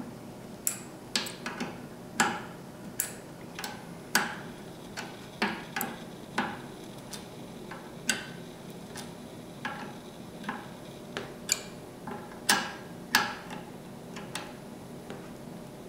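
Small open-end steel wrench clicking and tapping against the nut and rod end as a threaded steering rod end is tightened into its bracket. Sharp metallic clicks come irregularly, about one or two a second.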